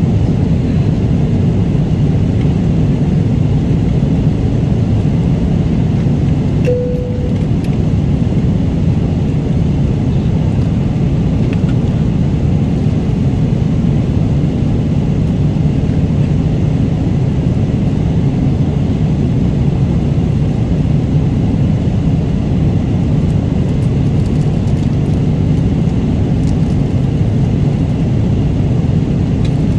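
Steady cabin noise of an airliner in flight: a constant low rumble of engines and rushing air, with a brief single tone about seven seconds in.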